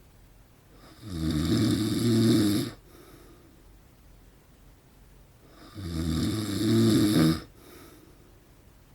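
A man snoring loudly in his sleep: two long snores about four and a half seconds apart, each lasting nearly two seconds, with quiet breathing in the gaps.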